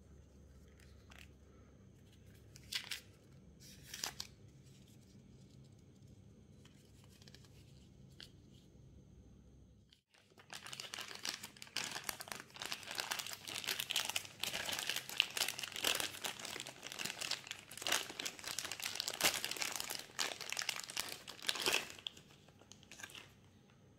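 Packaging handled by hand: a few light rustles and taps, then about ten seconds in, a long stretch of dense crinkling that stops shortly before the end.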